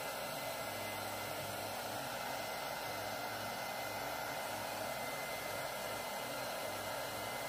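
Steady hiss of rushing air, like a running blower, with a faint low hum underneath and no change in level.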